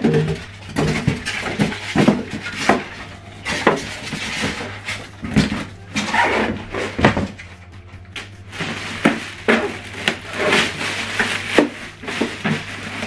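Cardboard packaging being handled and pulled out of a printer box: scattered knocks, scrapes and rustles, with the printer in its plastic bag being lifted out near the end.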